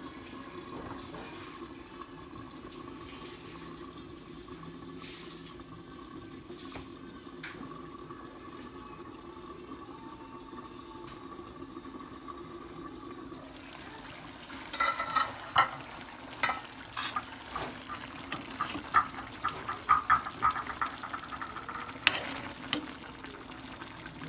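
Chicken stew simmering in a covered stainless steel pan over a gas burner: a steady low hum at first, then, from about halfway in, irregular bubbling pops and clicks.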